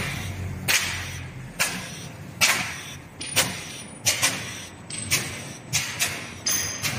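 PP sheet flexo printing die-cutting machine running, with a sharp clack and short hiss repeating evenly a little more than once a second, its working cycle, over a faint low hum.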